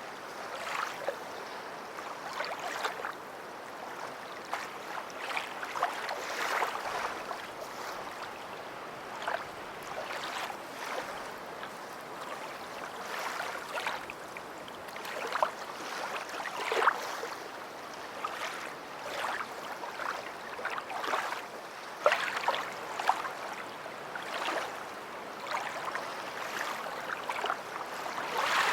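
Small waves on a beach washing up and lapping at the shore: a steady fizzing wash with many short splashes and crackles of water throughout.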